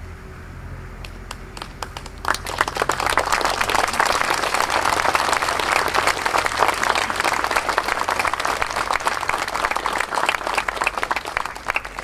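Crowd applauding: a few scattered claps at first, then from about two seconds in full, steady applause that breaks off near the end.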